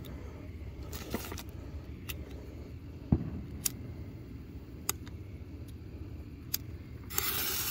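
A handheld lighter clicks again and again, each strike a sharp click, while it is held inside a firework fountain's tube to light the fuse. There is one duller knock about three seconds in. Near the end a sudden hiss starts as the fuse catches. A steady low rumble runs underneath.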